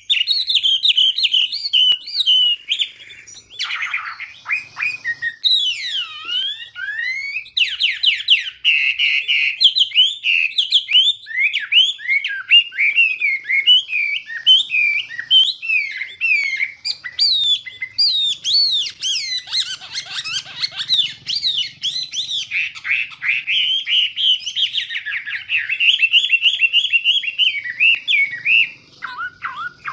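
Chinese hwamei singing: a long, fast, varied song of short rising and falling whistles and trills, nearly without pause apart from a brief break about four seconds in.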